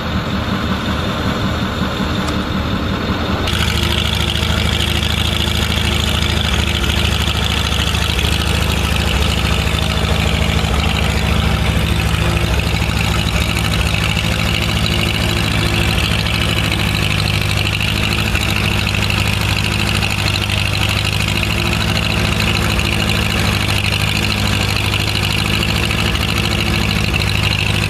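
Engine running steadily at low speed. The sound changes abruptly about three and a half seconds in, and from then on a deeper, even engine note holds without a break.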